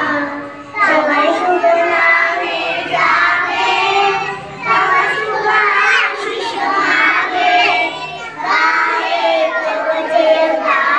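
A group of young children singing together in unison, in phrases a few seconds long with brief breaks between them.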